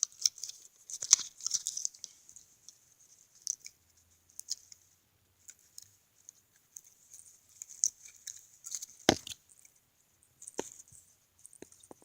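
Irregular crinkling and rustling, like plastic packaging being handled and pulled off a cat toy, with scattered small ticks and two sharper knocks in the later part.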